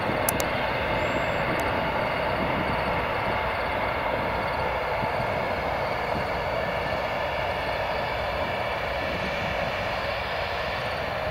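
Embraer ERJ-145's two Rolls-Royce AE 3007 turbofan engines running at low taxi power, a steady rushing hum with a faint high whine.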